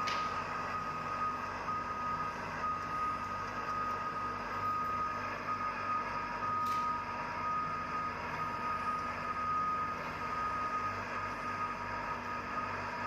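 Steady heavy-machinery noise with a high, steady tone that breaks off briefly now and then, and a slightly lower tone that comes and goes.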